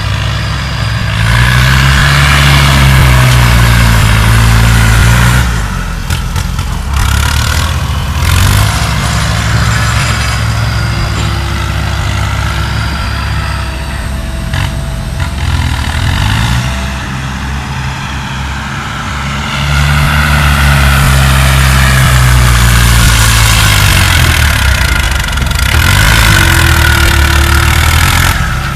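Diesel engine of heavy earthmoving machinery working, its speed rising and falling again and again as the load comes on and off. It is louder in the first few seconds and again over the last third.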